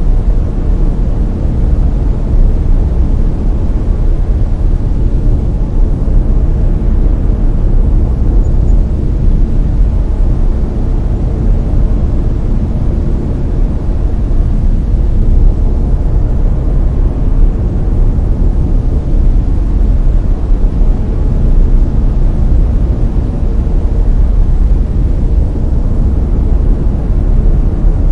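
Steady layered brown noise: an even, deep hiss with most of its strength in the low end, unchanging throughout.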